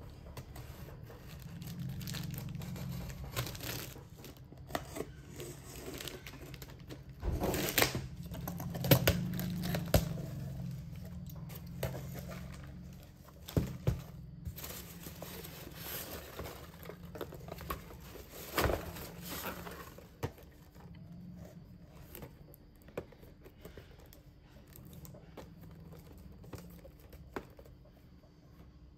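Packing tape being slit and torn off a cardboard shipping box and the flaps opened, then foam packing peanuts rustling and the boxes inside being handled. Irregular scraping and crinkling, with sharp knocks; the loudest stretch is in the first half.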